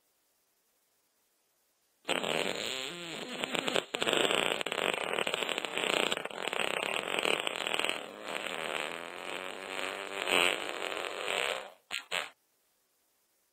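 Fart sound effect: one long, fluttering fart of nearly ten seconds that starts about two seconds in, then two short quick toots near the end.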